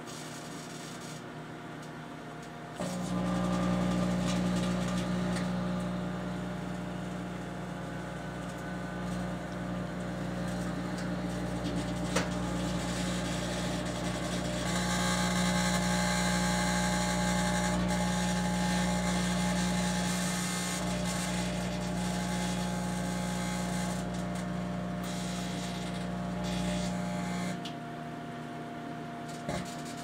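Microwave oven running with vacuum tubes cooking inside. About three seconds in, a loud mains hum cuts in over the quieter fan and cuts out suddenly near the end: the high-voltage transformer and magnetron cycling on and off. A sharp click comes about twelve seconds in, and a brighter hiss comes through the middle while the largest tube burns with a tall plasma flame.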